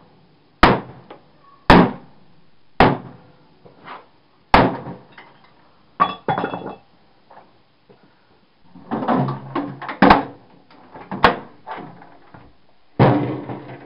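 Hammer blows striking a TV's plastic casing to break it open where security screws block removal. About eight sharp strikes come roughly a second apart, with a rattling clatter of loose plastic about nine seconds in.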